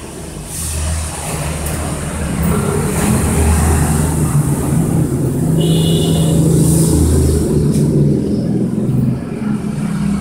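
A loud low engine-like drone that swells and eases in steps, with light taps and scrapes of a spatula scooping sticky rice in an aluminium steamer pot, and a brief high ring about six seconds in.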